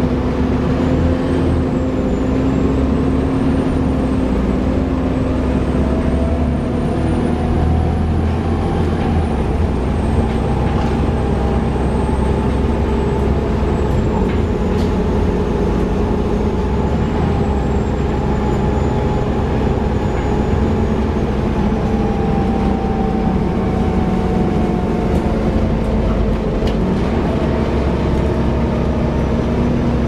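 Bus drivetrain heard from inside the passenger cabin while the bus is on the move: a steady low engine rumble, with ZF gearbox and cooling-fan ('hoover') whines that slowly rise and fall in pitch.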